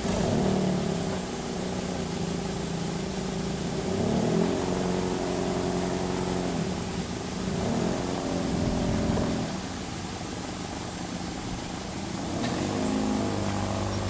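A vehicle engine running offscreen, revving up and easing off in repeated surges about every four seconds.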